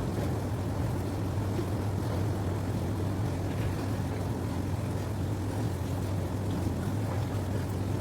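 A machine running with a steady low drone, even and unbroken throughout.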